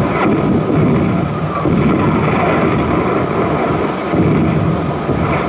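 Continuous loud rumbling noise, steady throughout, with no single sharp blast standing out.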